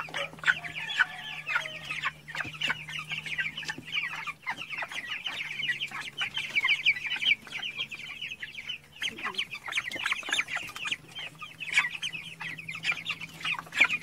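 A flock of four-week-old broiler chickens calling continuously at close range, many short, high calls overlapping.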